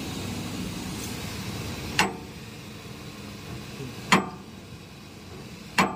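Three sharp hammer blows on steel, about two seconds apart, each with a brief metallic ring, over a steady background hiss.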